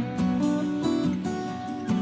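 Music: strummed acoustic guitar chords at a steady pace.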